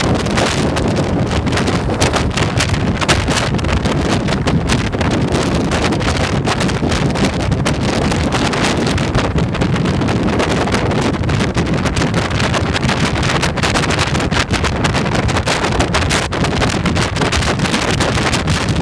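Steady wind buffeting on a motorcycle-mounted camera's microphone at road speed, with the motorcycle running underneath.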